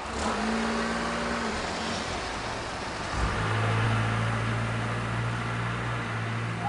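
Road vehicle engine running at the level crossing, a steady hum that deepens about three seconds in.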